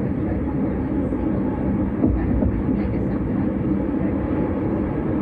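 Vienna S-Bahn electric train running along the track, a steady low running noise with a brief louder jolt about two seconds in.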